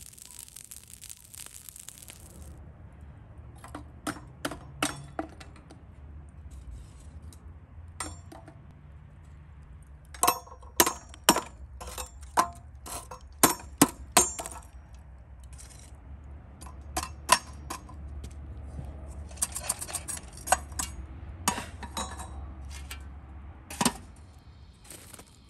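Metal tongs and charcoal clinking and clattering against a metal samovar as glowing coals are loaded into its firebox. Sharp metallic clinks come in clusters, densest in the middle and again toward the end.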